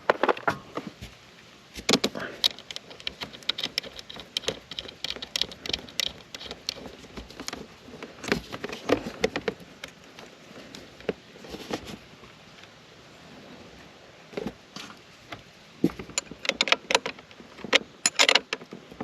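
Metal clinks, clicks and rattles of hand tools and a wire terminal on a trailer battery's positive post as the jack's power lead is fastened on, coming in irregular clusters with short pauses.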